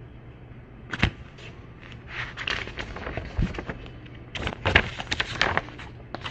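Phone handling noise: a sharp knock on the phone about a second in, then a run of clicks and rubbing on the microphone as the phone is moved about four to five seconds in, over a steady low hum.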